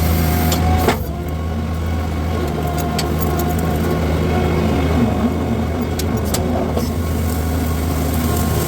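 Skid steer engine running steadily at constant speed, with a few short sharp knocks about a second in, at three seconds and around six seconds.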